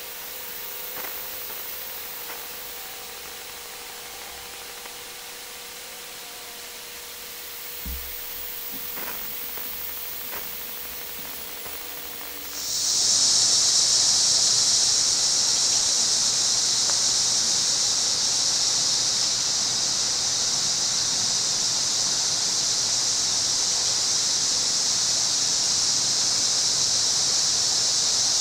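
Quiet woods with a soft low thump, then a loud steady insect buzz starts suddenly about halfway through and holds at an even level.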